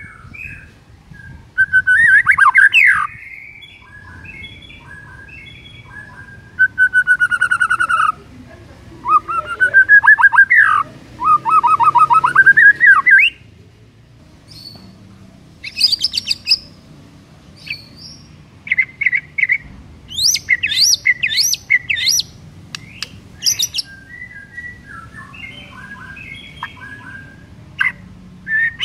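White-rumped shama (murai batu) singing a long, varied song in bursts: rich whistled phrases, runs of rapid rising notes, fast high trills and series of sharp chips, with short pauses between phrases. The loudest passages come a couple of seconds in and again from about nine to thirteen seconds in.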